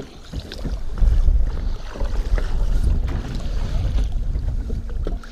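Wind buffeting the microphone with a heavy low rumble, strongest from about a second in, over choppy lake water slapping at the boat, with a few light knocks.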